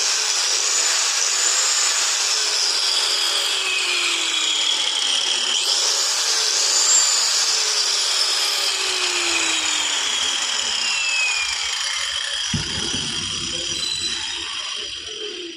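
Powertex PPT-AG-100G 1100 W angle grinder with a three-tooth cutting blade, running and cutting. Its whine sinks in pitch as it slows under load, springs back up about five and a half seconds in, then sinks again. There is a low thump a couple of seconds before it fades out at the end.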